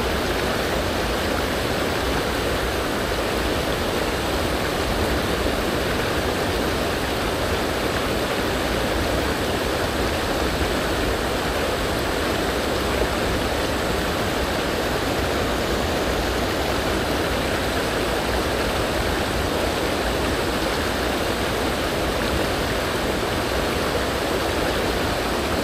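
A small river's current rushing steadily over stones, an even, unbroken wash of water.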